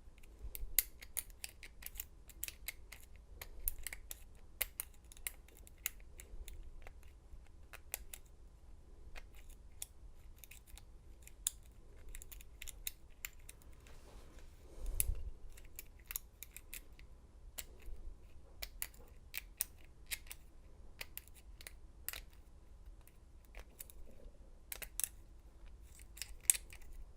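Small metallic clicks and scrapes of a lock pick and tension wrench working the pin stack of a Schlage deadbolt cylinder, coming irregularly. There is one louder handling knock about halfway through.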